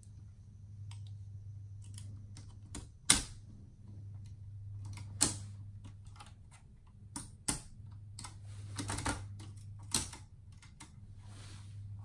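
1947 Hermes Baby portable typewriter being worked by hand at the carriage and return lever: irregular mechanical clicks and a few sharp clacks, not a steady typing rhythm, over a low steady hum.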